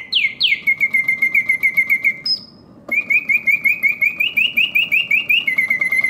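Karl Griesbaum double singing birdcage automaton singing: its bellows-driven whistle gives a few falling swoops, then rapid warbling trills of about seven notes a second. There is a short break about two seconds in, then the trills resume, rising in pitch and then settling lower. The mechanism runs smoothly.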